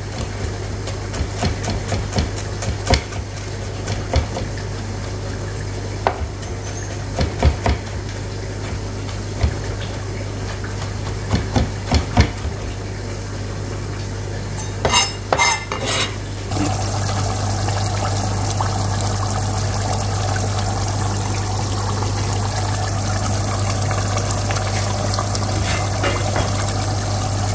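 Chef's knife chopping fresh coriander on a plastic cutting board: irregular sharp knocks of the blade on the board, a few a second, with a quick flurry near the sixteen-second mark. After that the knocking stops and a steady simmering bubble of the aloo gosht curry in its pot takes over, with a steady low hum underneath throughout.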